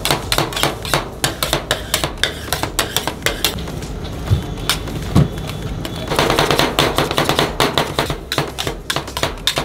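Metal spatulas chopping a rolled ice-cream mixture on a steel cold plate: rapid clacking taps of blade on metal, about four a second. About six seconds in the taps give way to a couple of seconds of scraping as the mixture is spread across the plate.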